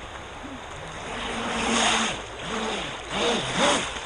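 RC jet boat's motor revving up and down, its pitch rising and falling, with two surges of rushing water from the jet about a second in and again near the end, over a steady rush of river water.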